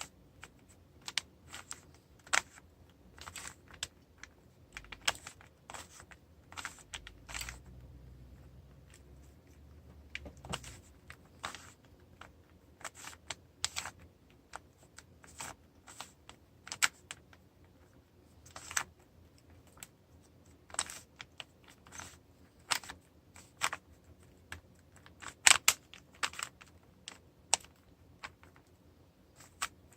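A stickerless Rubik's cube being turned by hand: its plastic layers click and clack in short irregular runs of turns, with brief pauses between.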